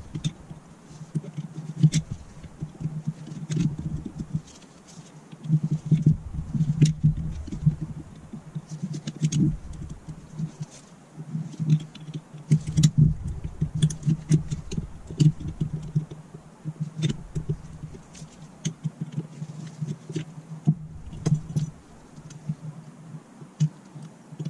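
Screwdriver and small metal parts of a Zenith 30IZ carburettor clicking, tapping and scraping as the carburettor is taken apart by hand on a metal bench top. Irregular clicks and knocks come every second or so, with duller bumps as parts are handled and set down.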